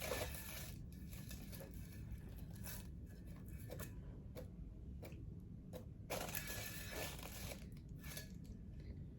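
Light scraping and rustling from painting tools and materials being handled, in two main stretches, near the start and about six seconds in, with scattered light clicks between.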